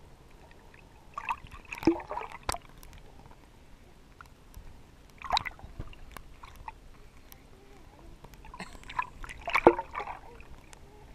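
Pool water splashing and sloshing against a waterproof camera held at the waterline, in three short bursts with sharp clicks: about two seconds in, around five seconds in, and near the end as the camera dips under the surface.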